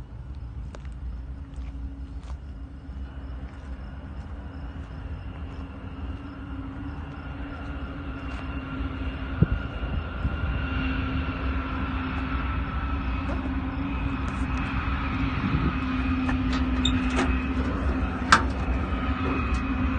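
1960 Ford F100 pickup's engine running at a steady speed, a low rumble with a steady hum, gradually getting louder. A few light clicks are heard over it.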